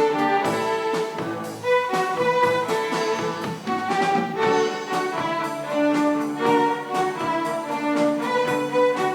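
A string ensemble of violins and cello playing live: a moving melody with notes changing about every half second over held lower notes.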